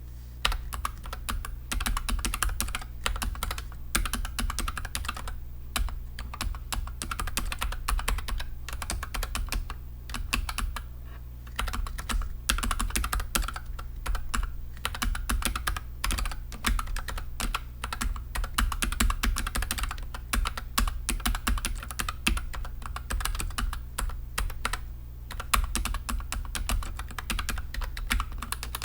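Continuous fast typing on a NuPhy Air60 low-profile mechanical keyboard with linear Gateron Red switches: a dense run of keystroke clacks with a few brief pauses between bursts.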